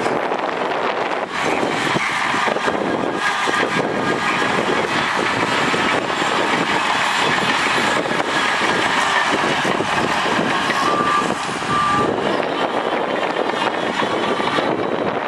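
Heavy diesel earthmoving machinery running steadily at work. Two short beeps come about eleven seconds in.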